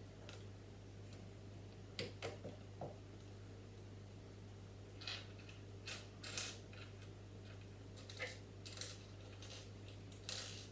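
Plastic Lego pieces being handled and pressed together: three sharp clicks about two seconds in, then scattered short clatters and rustles of pieces being picked through and fitted.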